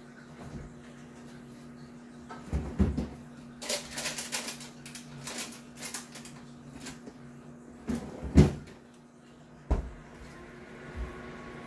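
Samsung combination microwave oven running with a steady low hum. Several knocks and a stretch of crisp clattering clicks sound close by, the loudest a sharp thump about eight and a half seconds in.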